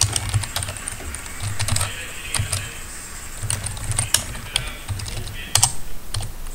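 Typing on a computer keyboard: an irregular run of keystroke clicks.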